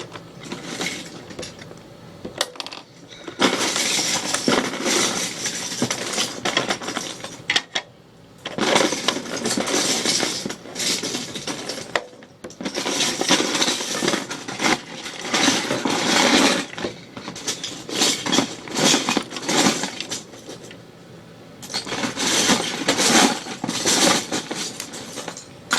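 Loose plastic Lego bricks clattering as hands rummage through a heap of pieces, in spells of several seconds with short pauses between.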